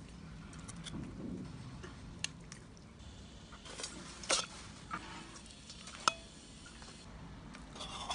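Soup being ladled into a stainless-steel tiffin carrier: a metal ladle clinks sharply against the metal containers several times, the loudest clinks about four and six seconds in, with the slosh of broth and vegetables pouring in.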